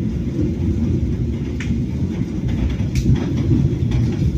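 KA Kutojaya Utara passenger train running on the rails: a steady low rumble from the carriage, with a few faint clicks.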